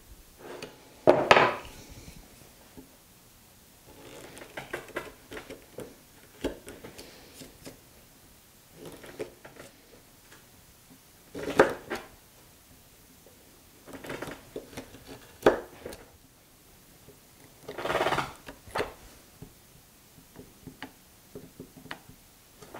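A bench chisel cutting a dado in a Douglas fir 4x4: a few sharp mallet blows several seconds apart, with quieter ticks and scrapes of the chisel paring out wood fibres between them.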